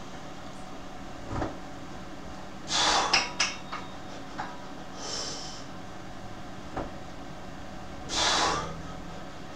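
Three loud, forceful breaths of a lifter straining through incline dumbbell presses, about three seconds apart, over a low room hum. A few short light clicks come around the first breath, from the plate-loaded dumbbells.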